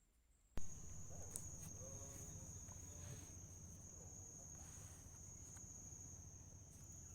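Steady high-pitched chirring of night insects, crickets, starting abruptly about half a second in, over a low steady hum.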